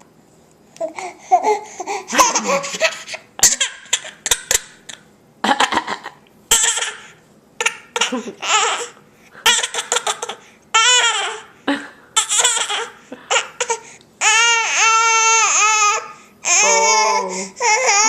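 A baby with a bad cold laughing and vocalising in short bursts about once a second, mixed with harsh, sudden coughs. Longer wavering high-pitched cries come in the last few seconds.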